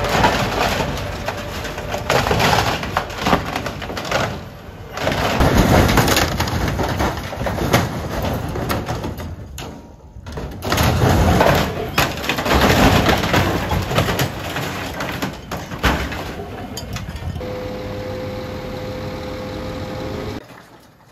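Aircraft aluminium fuselage being torn and crushed by a Fuchs material handler's grapple: repeated crunching, ripping and crashing of sheet metal and falling debris, in loud surges. Near the end a steady machine whine comes in.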